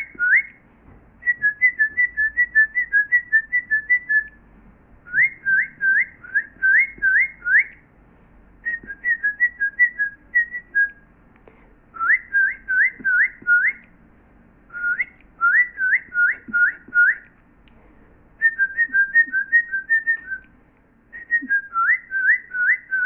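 Artificial birdsong from boxes hung in a tree: loud whistled phrases with short pauses between them. Some phrases are runs of about five quick rising whistles. Others are runs of about eight quick chirps stepping back and forth between two notes.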